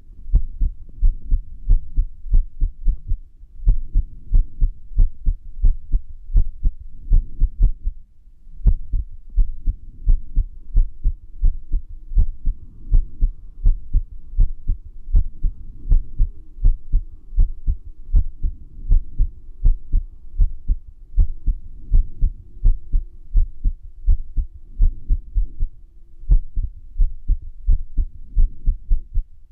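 Human heartbeat with an irregular rhythm (arrhythmia): a run of low, dull thumps at uneven spacing, with a short pause about eight seconds in.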